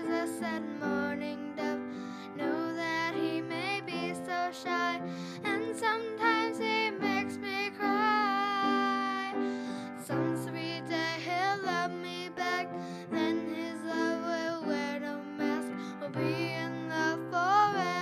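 A young girl singing a melody, holding notes with vibrato, over piano accompaniment.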